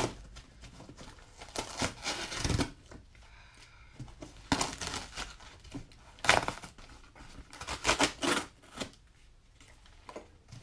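Cardboard shipping box being torn open by hand: tape and cardboard flaps ripping in several short bursts, with rustling and handling of the box between them.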